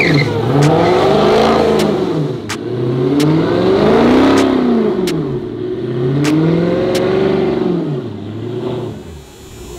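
Dodge Challenger's V8 revving up and falling back about four times while the rear tires spin, with a few sharp cracks in between; the sound drops away near the end.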